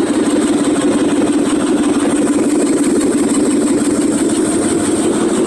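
Carbureted V8 engine idling steadily and evenly, purring like a kitten.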